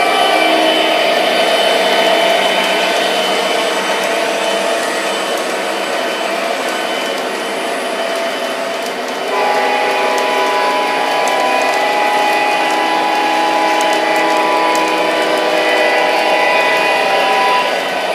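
An MTH RailKing SD70ACe O-gauge model diesel locomotive running with its train on three-rail track: a steady whir of motors and wheels on rail, mixed with the model's recorded diesel engine sound. About nine seconds in it grows louder, with new steady tones.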